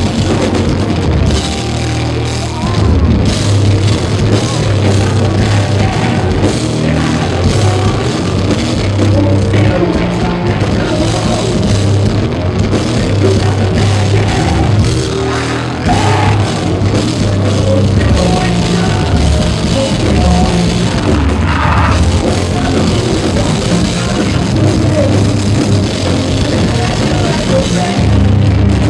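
Live metal band playing loud, with a heavy drum kit and bass-heavy guitars, in a poor-quality audience recording.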